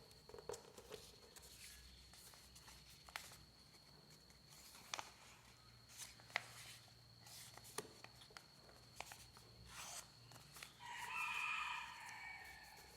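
Faint paper rustling with scattered soft clicks as the paper is folded and creased. Near the end a rooster crows once, for about a second and a half, the loudest sound.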